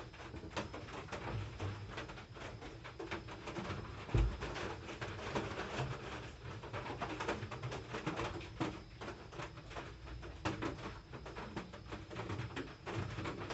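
Small clicks and rustles of hands handling a wood-glue bottle against a pine board while glue is dabbed into screw holes, with one louder low thump about four seconds in.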